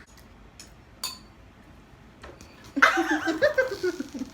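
A few light clicks and a single clink of cutlery on a dish about a second in, then a loud burst of giggling laughter from near the three-second mark.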